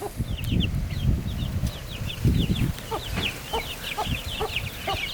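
Chicks peeping in quick, repeated short falling chirps. Low rumbling handling noise on the microphone in the first half, and lower clucking notes from about three seconds in.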